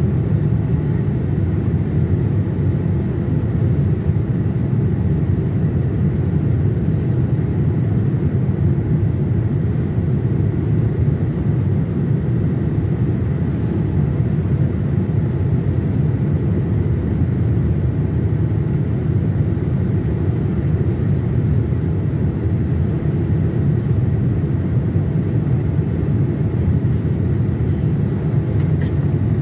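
Steady low rumble of jet engine and airflow noise heard inside an airliner cabin from a window seat over the wing, during the descent on final approach.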